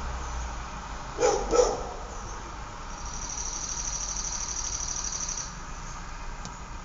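A dog barks twice in quick succession about a second in, over a low, steady rumble of distant traffic. From about three seconds in, a high, rapid insect trill runs for a couple of seconds and then stops.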